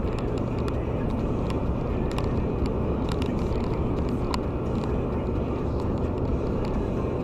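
Steady road and engine noise of a car cruising on a concrete motorway, heard from inside the cabin, with faint irregular ticks over the low hum.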